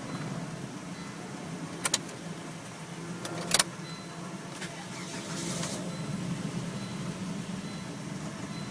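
2000 Volvo V70R with a no-start fault: a steady low hum, with two sharp clicks about two and three and a half seconds in and faint high beeps repeating.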